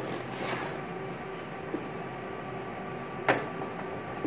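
A steady machine hum made of several faint tones, with a single sharp click about three seconds in.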